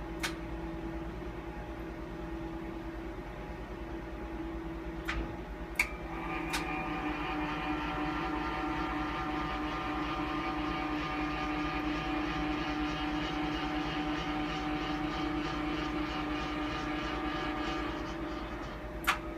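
Motor drive of a Siemens E.CAM gamma camera gantry moving its detector heads into the collimator-change position. After a few clicks, a steady multi-tone motor whine starts about six seconds in and stops shortly before the end, over a constant low machine hum.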